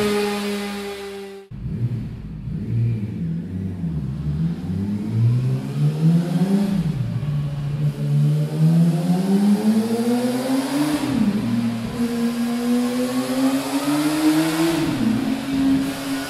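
Yamaha YZF-R6 inline-four engine revving through a MIVV MK3 aftermarket exhaust. It blips up from a low idle, then climbs high and falls back three times. For the first second and a half, the stock exhaust's high rev fades down before an abrupt cut.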